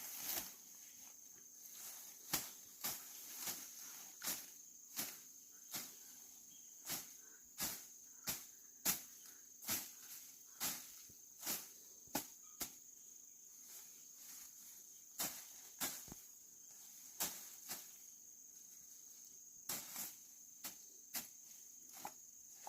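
Sharp knocks at irregular intervals, roughly one a second, over a steady high-pitched insect buzz such as crickets.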